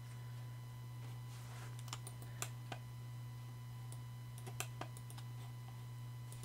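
A handful of short computer mouse and keyboard clicks in two small clusters, around two seconds in and around four and a half seconds in, over a steady low electrical hum.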